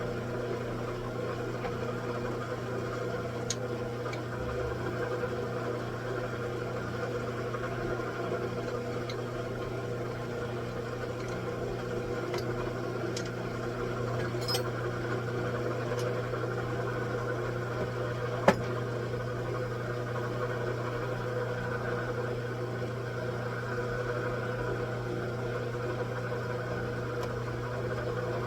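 Machine tool running with a steady hum, with a few light clicks and one sharp tick about eighteen seconds in.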